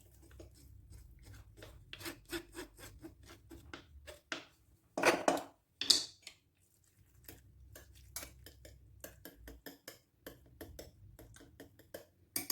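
A spoon scraping and tapping in a pot, roughly two or three strokes a second, as fresh cheese curds are added and stirred into thickened milk-and-starch cream. Two louder knocks come about five and six seconds in.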